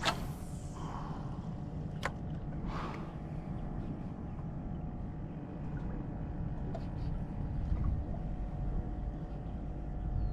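A small boat's motor running steadily: a low rumble with a faint steady hum over it. A few light clicks and knocks come through, a sharper one at the start and another about two seconds in.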